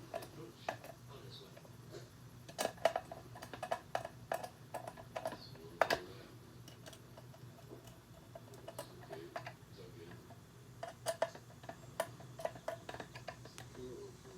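Ratchet wrench clicking in quick runs while the screws holding a distributor cap are tightened, with a few sharper tool knocks between.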